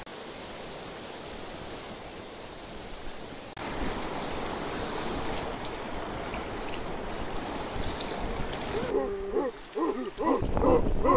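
River rapids: a steady rush of whitewater, stepping up suddenly about three and a half seconds in to a louder rush of choppy water close around a log raft.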